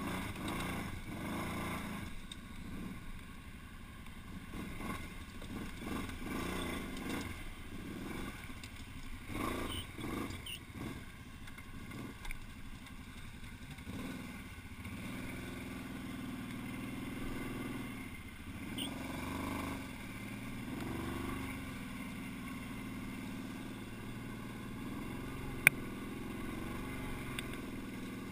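ATV engine running and revving through mud and tall grass, its pitch rising and falling with the throttle. A single sharp click near the end.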